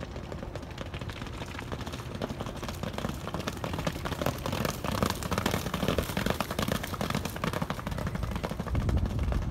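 Hooves of two galloping Thoroughbred racehorses striking a wet, sloppy dirt track, a quick splashing patter of hoofbeats that grows louder as the horses pass close, loudest about halfway through.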